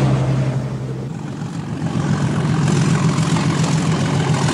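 Diesel train running past with a steady low engine hum; about a second in, a broader noise of the train moving close by comes in over the hum and carries on.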